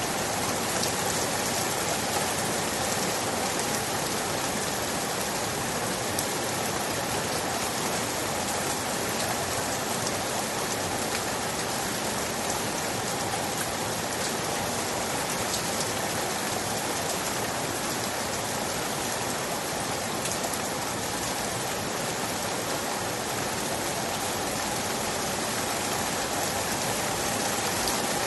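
Steady rain falling, a continuous even hiss with scattered drops pattering on a surface.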